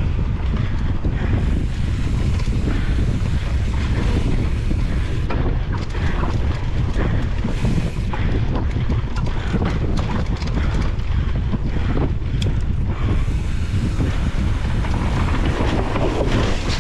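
Wind buffeting an action camera's microphone on a mountain bike ridden fast along a rough dirt trail. A steady heavy rumble runs throughout, with many small knocks and rattles from the bike over the bumpy ground.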